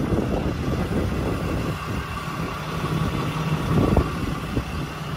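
6.7-litre Cummins diesel engine of a Ram 4500 tow truck idling steadily, with irregular low knocks and rumbles over it.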